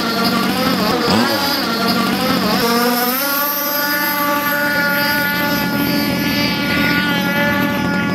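Electric RC speedboat running fast on the water, its motor giving a steady whine. The pitch dips and swoops a few times during the first three seconds, then holds steady.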